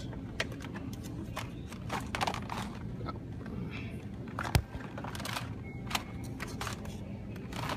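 Scattered clicks and taps of blister-packed toy cars being handled on metal store peg hooks, with one sharp knock about halfway through, over a steady low hum.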